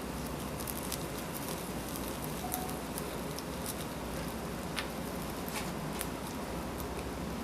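Barbecue cooking crackling and sizzling: a steady hiss with scattered sharp pops.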